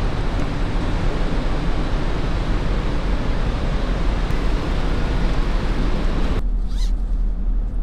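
Wind and ship noise aboard a car ferry: a steady rush with a low rumble. It cuts off abruptly about six seconds in, leaving a much quieter low hum.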